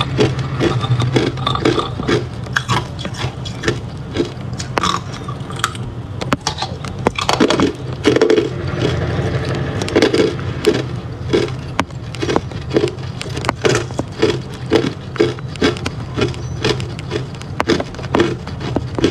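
A person biting and chewing hard clear ice: a run of sharp cracks and crunches, about two to three a second.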